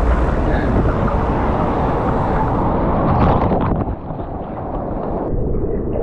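Wind buffeting the microphone: a rough, low, rushing noise that drops away about four seconds in and then builds again.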